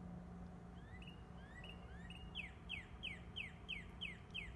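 A songbird singing: a few short rising whistles about a second in, then a run of about eight clear falling whistles, roughly three a second. A faint steady low hum lies underneath.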